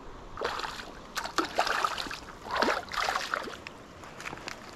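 A hooked bass splashing at the water's surface close to the bank as it is played in, in a run of irregular splashes that die down near the end.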